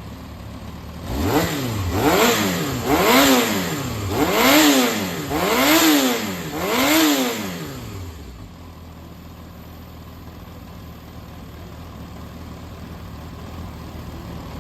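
Yamaha XJR400 air-cooled inline-four engine idling, then revved in six quick throttle blips, each rising and falling in pitch, before settling back to a steady idle. The seller describes it as running well with no abnormal noise.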